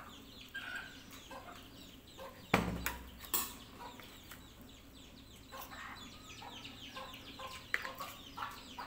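Birds chirping in the background: many short falling chirps, with two sharp knocks about two and a half and three and a half seconds in.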